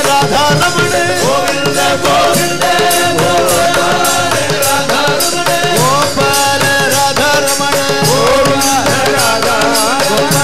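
Men singing a Carnatic-style devotional bhajan with gliding, ornamented melody lines, accompanied by small hand cymbals and drum keeping a steady beat.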